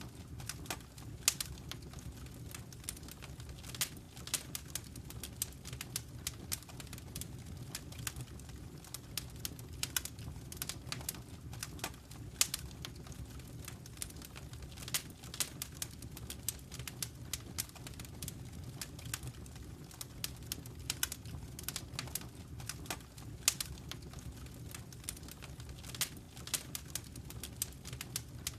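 Wood fire in a fireplace crackling, with frequent irregular sharp pops and snaps over a low steady rumble of the flames.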